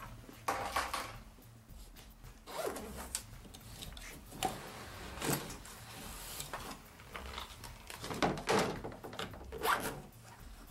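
Zipper on a soft gun case being pulled open in several short pulls, with fabric rubbing as the case and rifle are handled.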